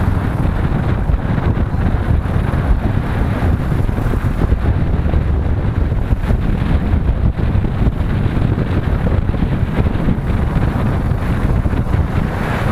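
Wind buffeting the microphone of a moving motorcycle, a steady heavy rumble with the bike's running and road noise underneath.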